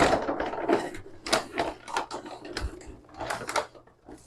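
Dry dog kibble being scooped out of a large plastic-lined food sack, the pellets rattling and the bag rustling in irregular bursts, about one or two handfuls a second.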